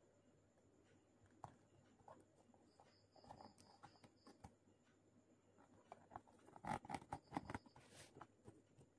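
Faint handling noise: a cardboard box covered in vinyl self-adhesive wallpaper being turned in the hands and set down on a table, with scattered soft taps and rustles and a denser cluster of knocks about seven seconds in.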